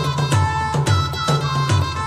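Background music: a pitched melody over a steady beat of about two beats a second.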